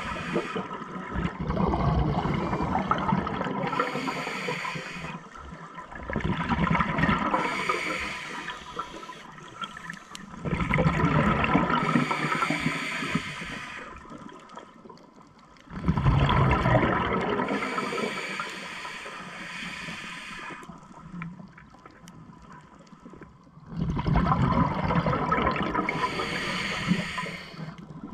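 Scuba diver breathing through a regulator underwater: loud rushing, gurgling bursts of exhaled bubbles, five of them, each lasting a few seconds, with quieter stretches between breaths.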